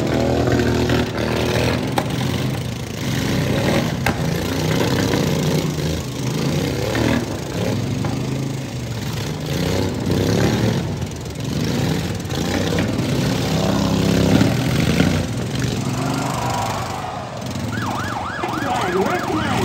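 Small lawn mower engines of pro-modified derby mowers running and revving up and down. A fast-wavering, siren-like tone comes in near the end.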